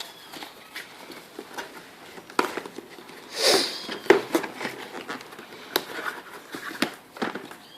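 Clicks, taps and rustling from packaging being handled and opened, with one longer, louder rustle about three and a half seconds in.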